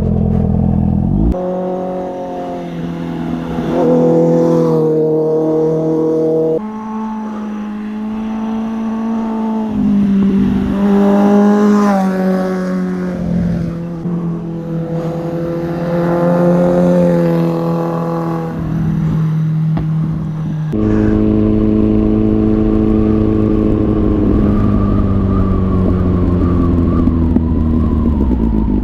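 Motorcycle engine running under way. The revs rise and fall steadily, with a few abrupt jumps in pitch: about a second in, about six and a half seconds in, and near twenty-one seconds.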